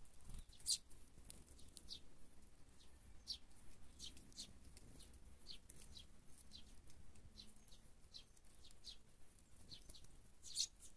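Sparrows chirping at a feeder: short, high chirps in quick, irregular succession, faint, with a couple of louder ones near the start and the end.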